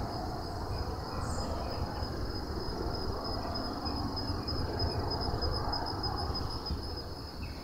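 A steady high-pitched insect trill runs without a break over a continuous low, uneven rustling noise.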